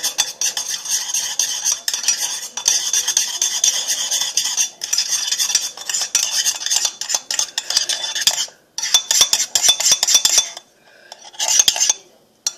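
A utensil stirring a thick body-wash, shower-gel and salt slime mixture around a ceramic bowl, with rapid clicks and scraping against the bowl's sides. The stirring stops briefly a little past two thirds of the way in and again near the end.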